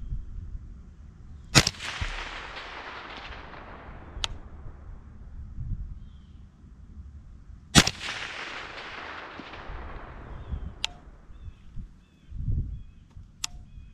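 Knights Armament M110 semi-automatic 7.62×51mm rifle firing two shots about six seconds apart at targets out to about 400 yards. Each shot is a sharp crack followed by a long fading echo. A few fainter sharp clicks fall between and after the shots.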